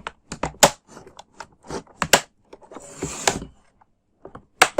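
Plastic bottom cover of an Acer Aspire 3 laptop being pressed back into place: a string of sharp plastic clicks as its clips snap in, a brief scraping rub about three seconds in, and a loud last click near the end.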